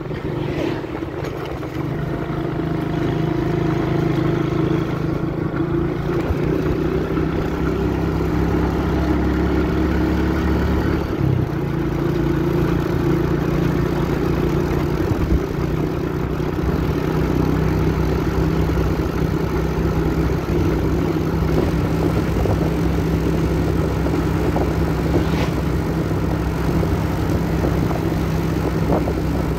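Vehicle engine running at a steady pace while travelling, with a steady hum and road noise and a brief change in engine note about eleven seconds in.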